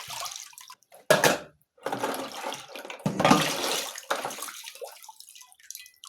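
Water splashing and pouring in a washing basin as dishes are washed by hand, in several separate splashes about a second apart.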